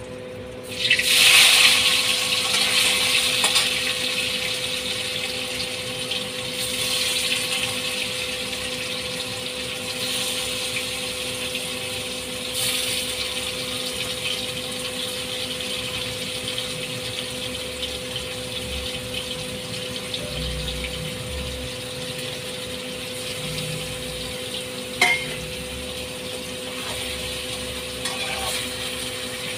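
Paneer cubes going into hot oil in a steel kadhai, bursting into a loud sizzle about a second in that settles into a steady shallow-fry sizzle, with smaller surges as more pieces go in. A single sharp metal clink against the pan near the end.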